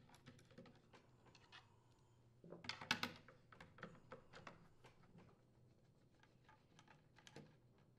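Faint clicks and light scraping of a Torx screwdriver turning screws out of a chainsaw's plastic engine cover, loudest in a short cluster about two and a half to three seconds in, with a few softer ticks after.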